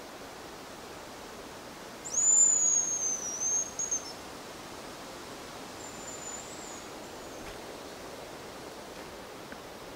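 Hazel grouse decoy whistle blown close by: a loud, thin, high whistle about two seconds in, lasting about two seconds, dipping slightly and breaking into short notes at the end. A fainter, shorter high whistle follows a few seconds later.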